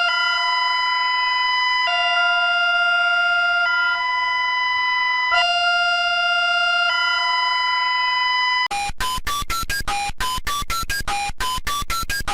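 Synthesized emergency alert tone: a steady electronic chord of several notes that switches pitch every couple of seconds, changing about nine seconds in to rapid beeping at about four beeps a second.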